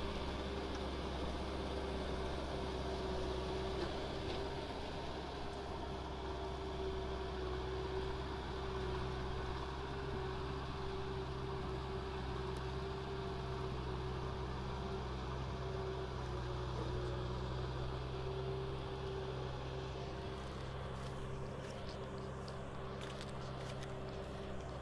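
Kubota M6040 SU tractor's diesel engine running steadily under load as it tills wet, muddy ground, growing slightly fainter near the end as the tractor moves away.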